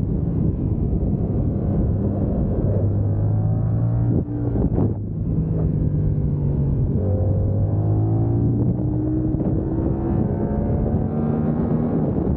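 Yamaha R7's 689 cc parallel-twin engine running hard on track, with wind noise on the bike-mounted microphone. The engine note breaks briefly about four to five seconds in, then rises again in steps from about seven seconds as the bike accelerates.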